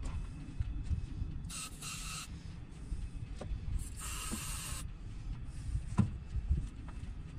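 Two short hissing bursts, the second louder, over a low rumble, with a few light knocks and one sharper knock near the end.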